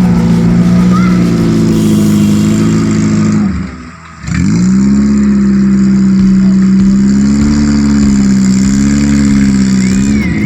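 Off-road jeep engine running hard at high revs, its pitch wavering slightly as the throttle is worked. About three and a half seconds in, the engine note sags and almost dies away, then picks back up and revs again within about a second.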